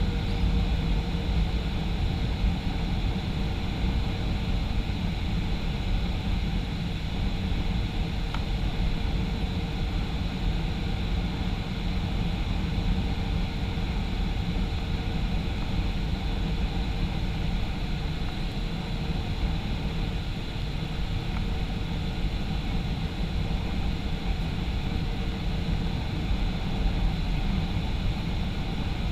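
Steady in-flight noise inside a Boeing 737-500: the low rumble of its CFM56 turbofan engines and the airflow, with a faint steady whine above, unchanging throughout.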